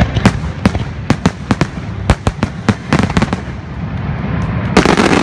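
Fireworks display: a rapid string of sharp shell bursts, several a second, thinning out, then a dense, loud wash of sound about five seconds in.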